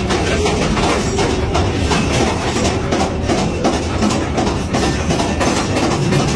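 Mine-train ride cars rolling along their track: a steady clatter of wheels on rail.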